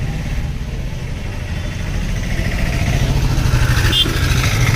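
Auto-rickshaw's small engine running as it drives up close, its low rumble growing louder over the last couple of seconds.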